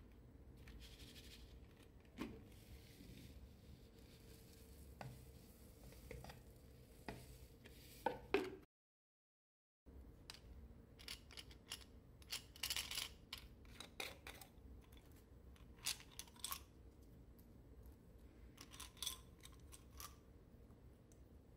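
Quiet handling sounds of small plastic containers and toys over a glass bowl: scattered light clicks and taps, a second of dead silence a little under halfway through, and two short squeaky scrapes in the second half.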